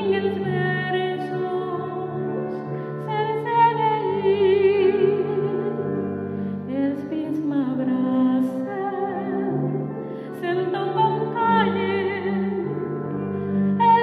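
A woman singing a slow Catalan habanera with a wide vibrato, accompanied by a digital keyboard holding low chords.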